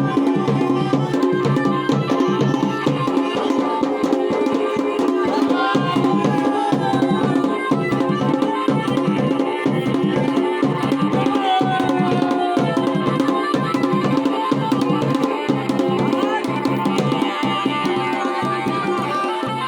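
Dhol and damau, the Garhwali wedding drums, played together in a fast, steady rhythm of dense strokes.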